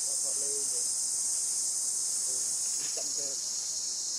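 Steady high-pitched insect chorus, an even unbroken drone.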